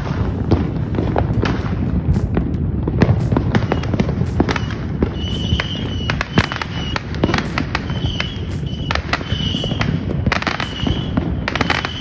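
Fireworks and firecrackers going off continuously: many sharp bangs and crackles, one after another, over a steady low rumble. From about halfway through, brief high steady tones recur several times among the bangs.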